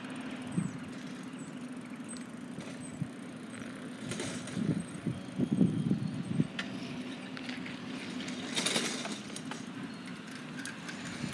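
Bicycle being ridden along a concrete sidewalk: tyre rumble and rattles, louder for a couple of seconds in the middle, with a steady low hum in the background.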